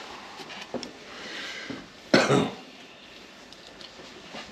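A single short cough about two seconds in, over a few faint clicks and taps of a screwdriver against the oven's metal frame.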